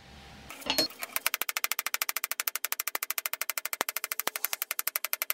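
Rapid, evenly spaced hammer blows on steel, about ten a second, each with a short metallic ring, starting about a second in after a brief low hum.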